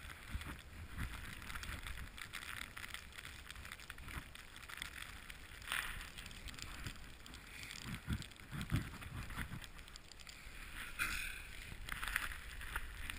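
Snowboard sliding through deep powder snow: a soft, uneven hiss with scattered low thumps.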